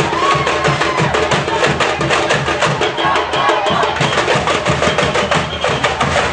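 Live percussion-led music: drums with a regular low bass-drum pulse under dense, fast, clicking percussion, playing a steady beat.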